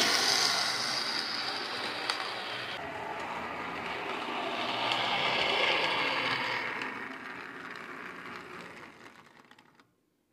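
Brass O-scale model streetcar running on three-rail track, its motor and wheels on the rails making a steady rolling whir. The sound swells about halfway through as the car nears, then fades out just before the end.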